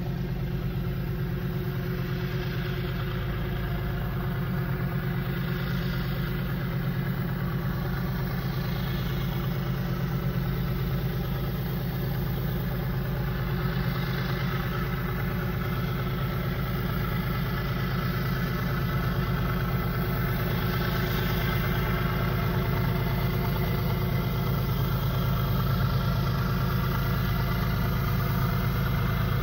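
GE ES44AC diesel-electric locomotive engine running as the train approaches slowly: a steady low drone that grows gradually louder.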